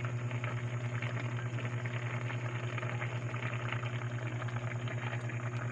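Pot of pork and liver adobo simmering, a faint crackly bubbling, under a steady low hum.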